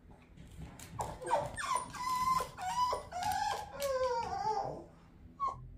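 Boston terrier whining and crying in a string of wavering, pitch-bending whimpers, the distress whine of a dog left behind when its owner goes out.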